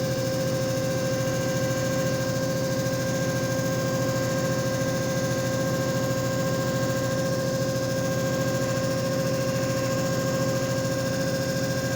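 JFJ Easy Pro disc repair machine running: a steady motor hum with a constant high-pitched whine that holds unchanged throughout.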